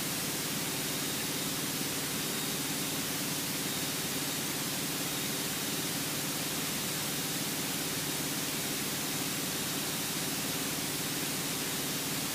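Steady hiss with a faint, even hum beneath it: a Cessna 172's cabin noise in flight as heard through the headset and radio audio feed between transmissions.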